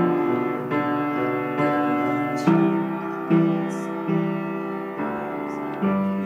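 Slow piano music: notes and chords struck about every second and left to fade.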